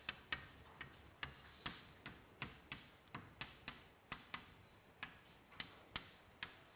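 Chalk tapping and clicking against a blackboard while writing: faint, sharp taps at uneven spacing, about three a second.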